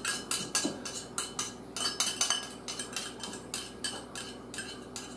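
Metal spoon scraping and tapping inside a small copper cup to get out the last of some chopped green chilies: a quick run of clinks and scrapes, about four a second.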